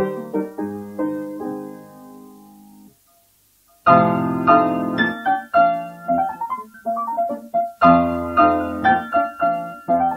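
Solo piano playing a mid-19th-century quadrille. A phrase ends on a held chord that dies away, there is a pause of about a second, then a loud new section starts.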